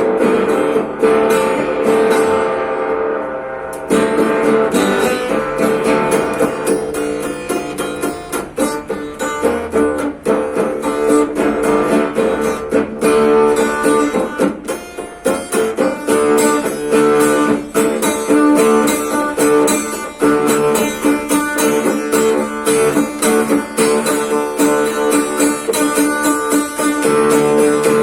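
Guitar playing in a Tuareg desert-blues style: a steady stream of quickly picked notes over held notes.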